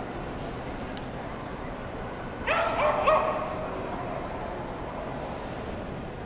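A dog barking twice in quick succession, about half a second apart, over the steady background noise of a busy hall.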